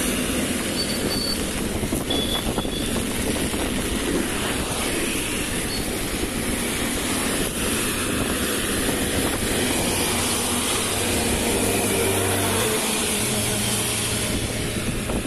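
Traffic passing on a rain-soaked road in heavy rain, a steady hiss of rain and wet tyres. In the last few seconds a vehicle engine's low, steady hum comes in.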